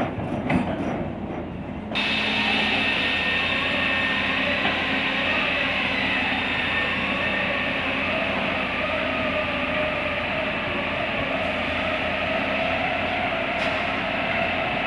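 Hydraulic excavator's diesel engine running under load with a steady hydraulic whine as the arm and bucket work through mud. About two seconds in the sound turns louder and fuller and then holds steady.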